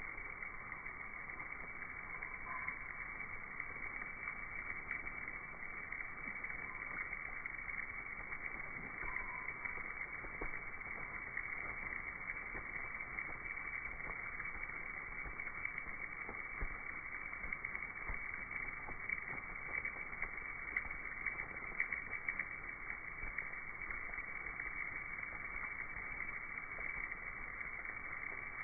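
A muffled, steady rushing hiss full of fine crackles and flutters from a mass of Mexican free-tailed bats flying out of a cave. The audio is slowed, with louder ticks in the second half.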